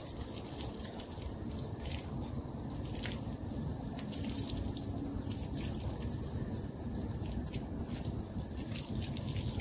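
Water spraying from a garden hose nozzle onto a dog's coat, splashing and dripping on wet tiles.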